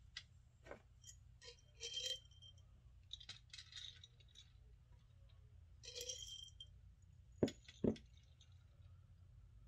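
Small plastic aroma beads rattling and clinking as they are scooped with a wooden stick and packed into a cookie cutter on a metal baking sheet, in a few short spells, with two sharp taps about half a second apart near the end.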